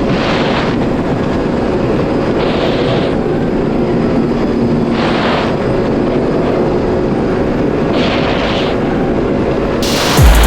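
Yamaha GP1800R SVHO personal watercraft's supercharged four-cylinder engine running steadily under way, with a rushing noise that swells every few seconds.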